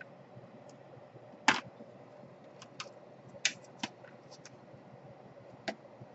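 Scattered sharp clicks and taps of plastic laptop case parts being handled during disassembly, about half a dozen, the loudest about a second and a half in.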